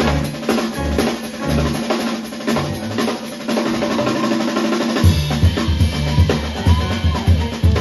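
Live drum kit solo: fast, dense snare, tom and cymbal strokes. About five seconds in the bass drum joins with rapid, frequent kicks.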